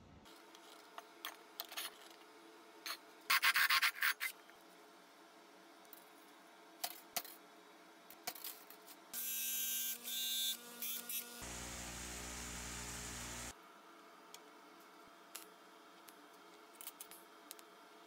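Short scraping and rubbing on metal with scattered clicks, the loudest scrape a few seconds in. About nine seconds in a cordless drill whines as it spins a tungsten electrode against a sanding disc to grind it to a point, followed by about two seconds of steady grinding noise.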